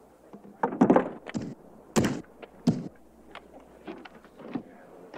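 A series of heavy thuds and knocks, the loudest about one and two seconds in, followed by lighter knocks.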